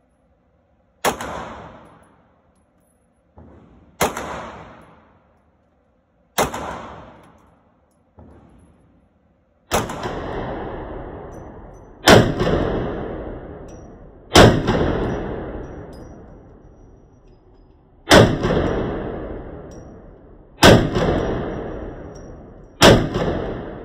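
Pistol firing single shots at a slow, uneven pace, nine shots two to four seconds apart, each followed by a long echoing decay in an indoor range, with two much fainter shots in between.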